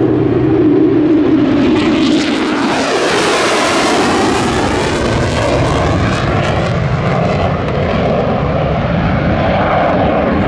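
Lockheed Martin F-35A Lightning II's single jet engine as the fighter flies past and climbs away. A loud, steady rumble turns into a broad rushing noise with a sweeping, phasing quality about two seconds in.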